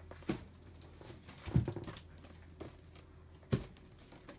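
Handling noise: four separate light knocks and clunks of objects being moved and set down, the loudest about a second and a half in, followed by a few smaller taps.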